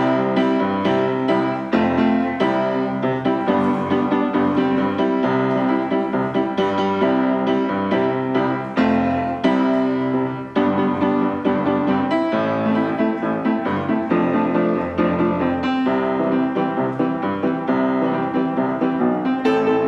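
Piano music playing, a steady run of notes with no singing.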